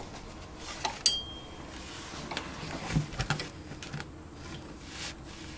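Scattered metallic clinks and taps of a wrench on the stabilizer link's seized nut and bolt. The one about a second in rings briefly.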